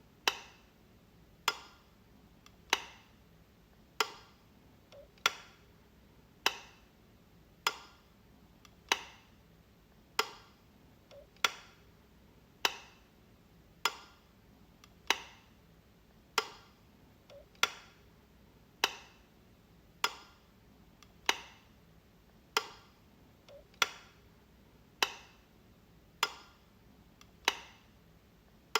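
Wall light switch clicking, one sharp snap about every one and a quarter seconds, some with a fainter click just before it.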